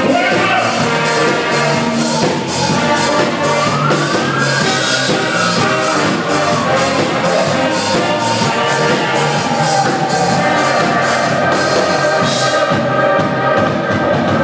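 A band playing music with brass horns over a steady percussion beat.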